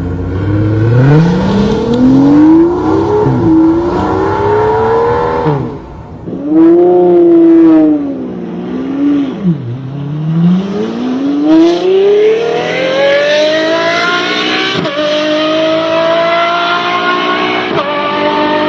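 V12 car engines accelerating hard in several short clips cut one after another. The engine note climbs steeply in pitch, with brief drops at gear changes. The last few seconds hold a high, steady note.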